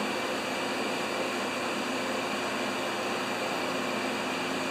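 Fan running steadily: an even rush of moving air with a faint steady hum under it.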